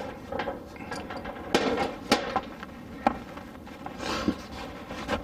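Several separate light knocks and clunks of hard objects being handled and set down, the sharpest about a second and a half, two seconds and three seconds in.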